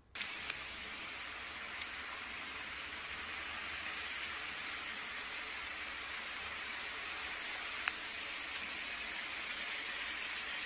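Steady hiss of rain falling, broken by a couple of sharp ticks, one about half a second in and one near the end.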